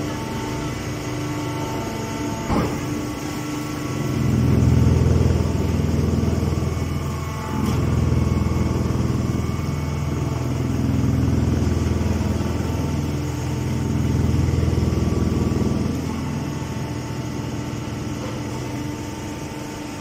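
Hydraulic horizontal hay baler running: a steady machine hum whose low drone swells louder four times, with a single sharp knock about two and a half seconds in.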